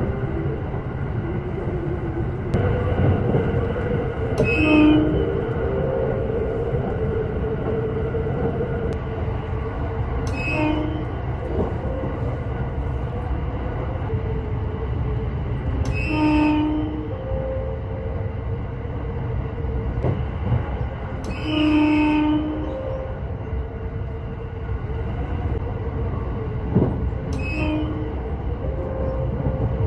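Inside a JR 681-series electric train running at speed: steady rail and running noise, broken by five short horn blasts about every five to six seconds, the third and fourth a little longer. The blasts are warnings to track maintenance workers beside the line.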